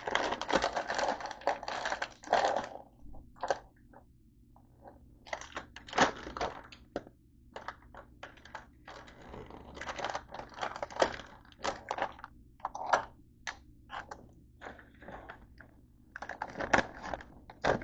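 Plastic snack bag crinkling for about two and a half seconds, then scattered sharp clicks and crackles as the packaging is handled.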